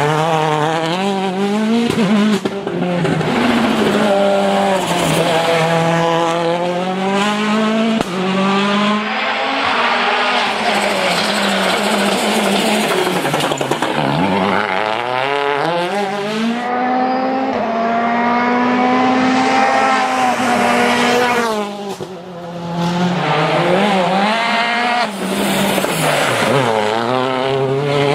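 Citroën DS3 WRC rally car's 1.6-litre turbocharged four-cylinder engine at full effort. The revs climb repeatedly and drop at each gear change, with occasional sharp pops and some tyre noise.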